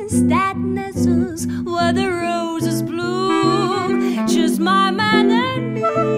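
A woman singing a 1920s-style jazz tune with vibrato and sliding pitch, over steady swing-rhythm chords strummed on an archtop guitar.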